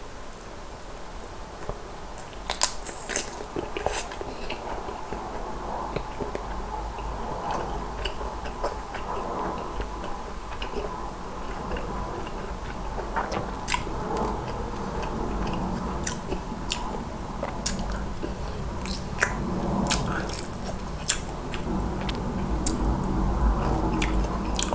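A person biting and chewing soy-garlic fried chicken, with sharp crunches of the fried coating scattered over steady chewing.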